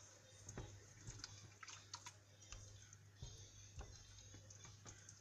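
Faint, irregular light ticks and scrapes of a spatula stirring tomato paste and chicken in a stainless steel pot, over a steady low hum.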